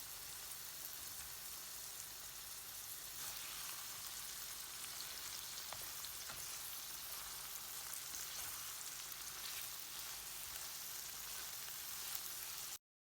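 Fava beans frying in olive oil: a steady crackling sizzle with small pops. It cuts off suddenly near the end.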